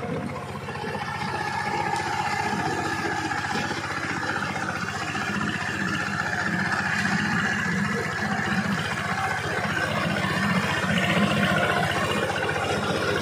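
Single-cylinder diesel engine of a two-wheel power tiller running steadily under load as its rotary tiller churns through wet paddy mud, with a fast, even chugging. It gets a little louder about a second in and holds there.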